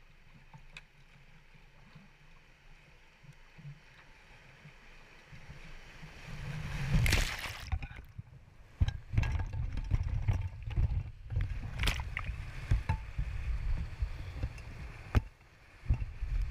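Kayak running down a weir step into whitewater: a faint flow of water at first, then about seven seconds in a loud splash, followed by rushing, churning water slapping and knocking against the hull.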